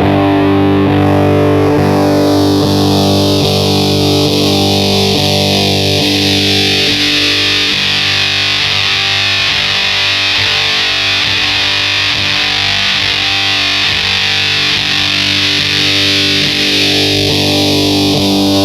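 Electric guitar through the Wyse Audio Devices Cough Syrup fuzz pedal, one fuzzy chord held and ringing on. The pedal's notch-filter tone control is swept slowly down over the first several seconds and then back up, changing the tone from thin to heavy and back.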